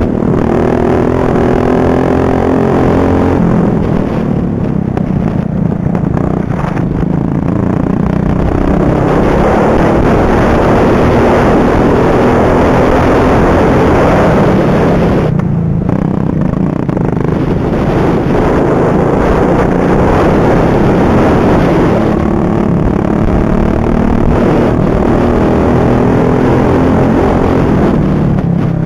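Racing ride-on lawnmower's engine at full race pace, heard onboard, its pitch rising and falling as it accelerates and eases off through the corners. It backs off briefly just past halfway, then revs up again.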